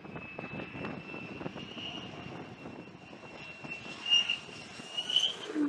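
F-35 fighter jet's engine on approach to a carrier deck: a steady high-pitched whine over a rumbling haze, swelling louder briefly about four seconds in and again about five seconds in as the jet closes in.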